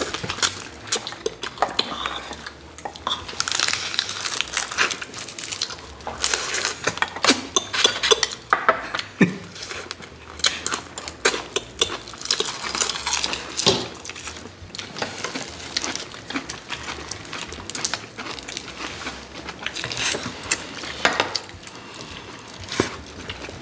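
Cutlery clinking and scraping against dishes at a meal, with many irregular small clicks and crackles from eating, and no regular rhythm.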